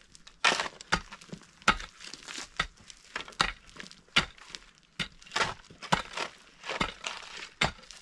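A pick and a shovel biting into dry, stony earth: irregular crunching strikes and scrapes, roughly two a second, as the ground is dug and levelled.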